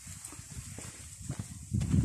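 Footsteps on a stony dirt path, about two steps a second, with a low rumble swelling near the end.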